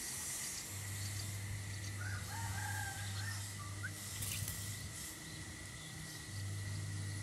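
A rooster crows once, faintly, about two seconds in. A short chirp follows, over a steady hiss with a thin high whine.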